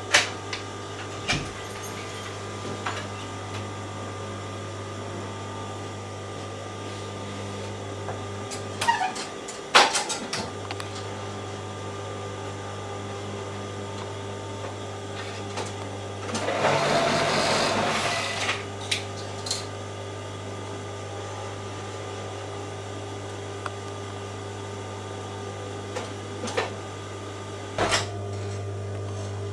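Electric overlock sewing machine running with a steady low hum, with a louder burst of about two seconds near the middle and scattered clicks and knocks as fabric is handled.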